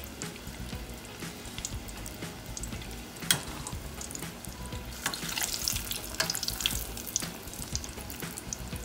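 Breaded salmon pieces deep-frying in hot oil in a saucepan: a steady crackling sizzle that grows busier in the second half. A single sharp click comes about three seconds in.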